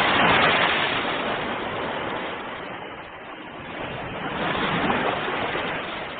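Ocean waves breaking and washing in: a surge at the start that fades, then a second wave swelling about four and a half seconds in before ebbing away.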